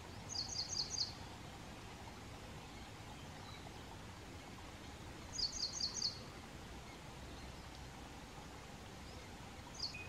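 Ashy prinia calling: two quick runs of four high, sharp notes, about five seconds apart, then a single note near the end, over steady low background noise.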